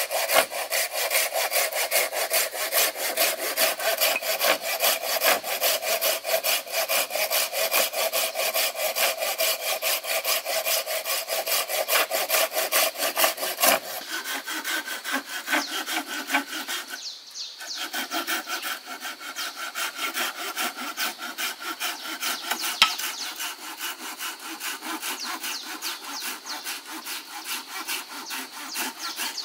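Hand saw cutting through wood in rapid, steady back-and-forth strokes. The pitch of the cut changes about halfway through, and the sawing stops briefly a few seconds later before carrying on.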